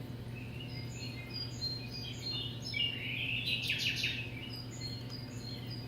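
Birds chirping and calling in many short notes, with a rapid buzzy trill about three and a half seconds in, over a steady low hum.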